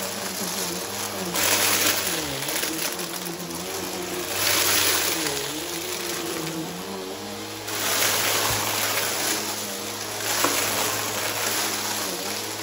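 Bissell upright vacuum running over a rug, sucking up a crunchy mix of glitter and confetti. The motor hum dips in pitch and recovers a few times under the load. The rushing, crackling intake noise swells in four or five surges as it passes over the debris.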